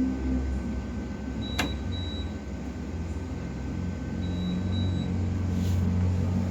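Refrigerator door-open alarm beeping: a high double beep that repeats every few seconds, sounding twice here, over a steady low hum. A sharp click about one and a half seconds in.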